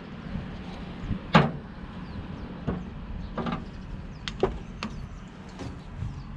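Scattered metal knocks and clinks of tools and parts as the filter is taken out of a truck's hydraulic oil tank: about seven over the few seconds, the loudest a ringing knock about a second and a half in, over a steady low hum.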